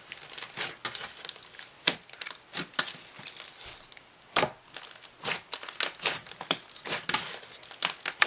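Butter slime worked by hand, giving irregular sizzly crackles and small bubble pops.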